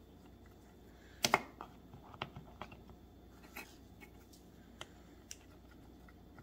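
Handling noises as a plastic model tank turret is picked up and set down over a small metal clamp on a cutting mat: a sharp double click about a second in, then scattered light clicks and taps.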